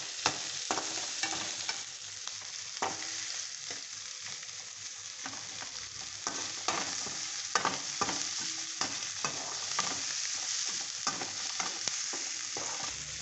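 Freshly added chopped onions, ginger, garlic and green chillies sizzling in oil in a stainless steel kadai, stirred with a perforated metal spoon that scrapes and clinks against the pan again and again.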